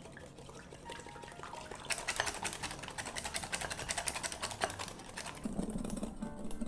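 Wire balloon whisk beating egg whites in a glass bowl: rapid, even clicking of the wires against the glass, loudest through the middle, as the whites are whipped to a thick foam.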